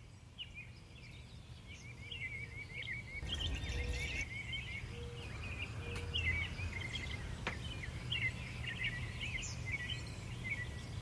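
Small songbirds chirping and twittering outdoors, with quick runs of repeated high chirps, over a steady low rumble.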